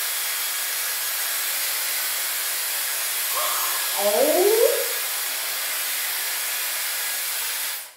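Dyson Airwrap hair styler blowing air steadily through its brush attachment as it is drawn through damp hair, a loud even hiss that cuts off just before the end.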